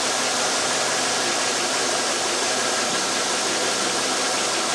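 2001 Chevrolet Silverado 2500HD pickup engine idling steadily under a constant hiss.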